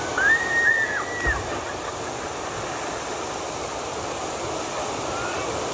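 Waterfall rushing steadily, with a brief high-pitched call in the first second.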